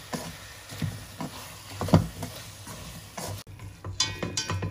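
Seasoned vegetables sizzling in a frying pan as they are stirred with wooden chopsticks, which knock against the pan, loudest about two seconds in. After an abrupt cut, chopsticks clink against a stainless steel pot.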